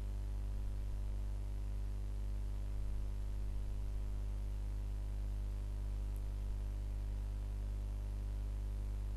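Steady low electrical hum with a buzzing stack of overtones, unchanging.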